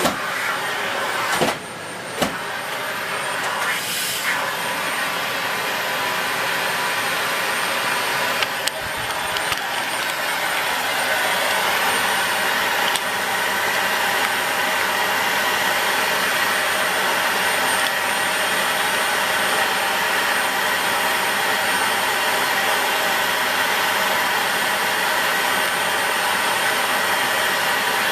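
Dyson Light Ball Multi Floor bagless upright vacuum cleaner running steadily, with two sharp knocks about two seconds in, growing a little louder after about ten seconds.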